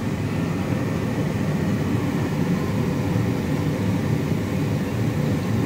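Steady low rumble of background noise, even throughout, with no distinct knocks or clicks.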